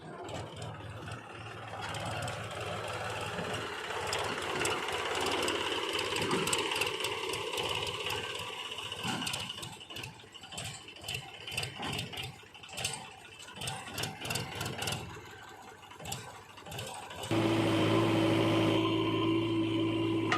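JCB 3DX backhoe loader at work: its diesel engine runs with a quick run of clanks and knocks from the arm and bucket. About three-quarters of the way through, the sound cuts off abruptly and gives way to a louder, steady hum.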